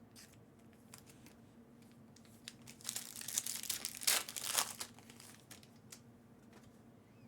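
Trading-card pack wrapper crinkling and tearing open: a crackling burst of about two seconds in the middle, with light handling clicks around it.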